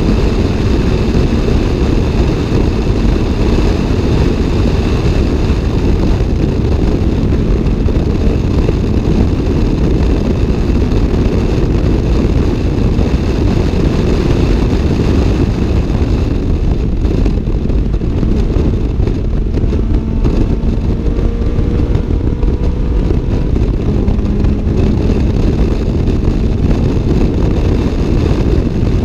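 Toyota AE86 Levin's 4A-GE twin-cam inline-four, with a 5Zigen exhaust, running hard at circuit speed. Heard from inside the cabin, under a steady rush of wind and road noise.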